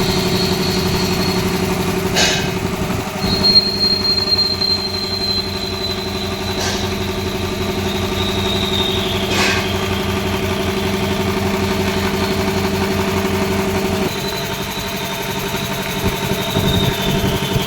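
5 HP electric air compressor with a 300-litre tank running, a steady low hum with a high whistling tone that slowly drops in pitch. Three sharp clicks fall in the first half, and the hum shifts lower about three-quarters of the way through.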